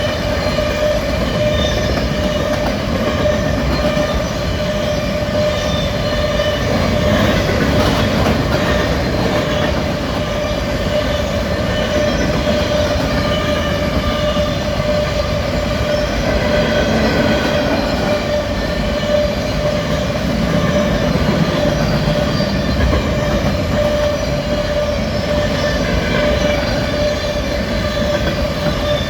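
Freight train cars rolling past on the rails, a steady loud rumble of wheels on track with a steady ringing tone over it.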